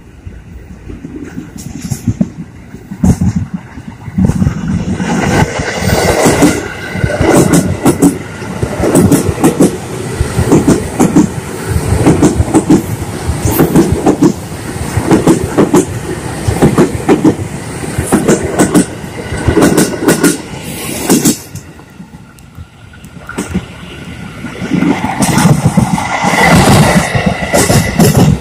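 KRL Commuter Line electric multiple-unit train approaching and passing close by, its wheels clattering over the rail joints in a repeating rhythm. The sound builds from faint to loud, dips briefly about three-quarters of the way through, then grows loud again.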